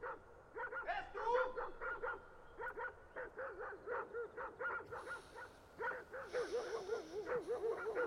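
A chorus of short, repeated animal calls, several a second and overlapping, with a faint hiss joining about halfway through.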